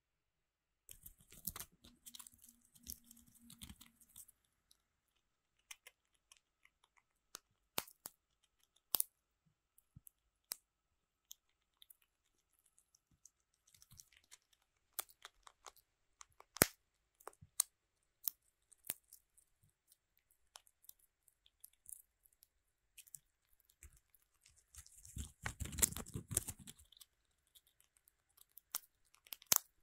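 Squirrel gnawing a pine cone and cracking pine nuts: faint, sharp crunching clicks of teeth on cone scales and shells, scattered irregularly, with longer spells of crackling gnawing about a second in and again near the end.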